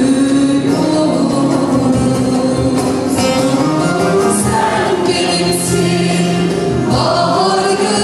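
A female soloist sings a Turkish folk song (türkü) into a microphone, with choir voices and instrumental accompaniment behind her.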